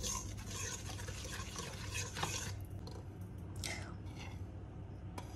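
Flour pouring from a bowl into a stainless-steel mixing bowl, a soft hiss for the first two seconds or so. After that come a few light scrapes and taps of a metal spoon pushing the last flour out.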